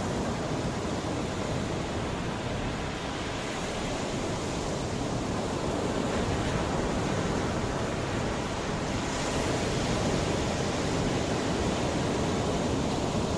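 Mediterranean sea waves washing in, a steady rush of surf that swells a little about two-thirds of the way through.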